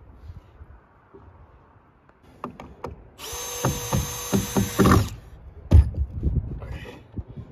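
Cordless drill running for about two seconds, driving a screw into a 2x4 wall frame, followed by a few sharp wooden knocks.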